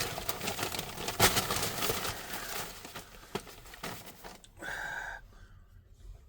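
Close-up crinkling and rustling of a paper food wrapper, with sharp clicks, as a sandwich is handled and eaten. It grows quieter after about three seconds.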